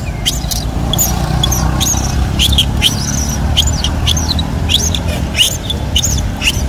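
Baby long-tailed macaque giving short, high-pitched squeals over and over, about two a second, many dropping in pitch, over a steady low rumble.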